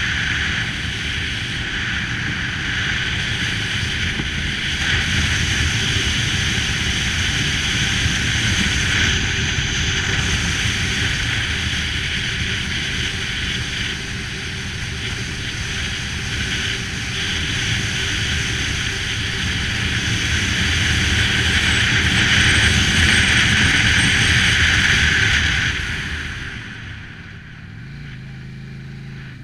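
Cruiser motorcycle riding at speed: wind rushing past and the engine running underneath. The rushing drops away about three seconds before the end as the bike slows into a bend, leaving mostly the lower engine sound.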